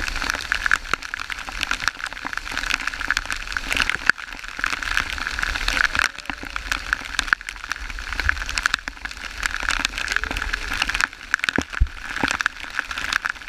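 Waterfall water pouring and splashing close by, a steady rush full of sharp drop-like ticks.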